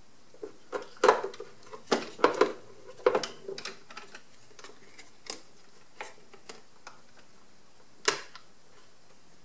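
Irregular light clicks and knocks of hard plastic parts being handled and fitted together as the main brush motor and brush housing go back into a Roborock robot vacuum. The clicks are busiest in the first few seconds and thin out, with one sharper click about eight seconds in.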